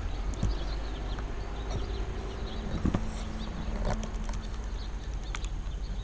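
Scattered light knocks and rustles from a camera being handled and set in place, over a steady low outdoor rumble.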